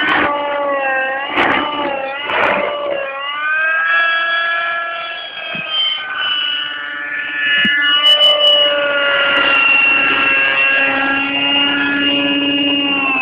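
Radio-controlled Align T-Rex model helicopter flying: a steady high whine of rotor and drivetrain. Its pitch wavers up and down for the first few seconds while it manoeuvres, then holds level as it hovers low.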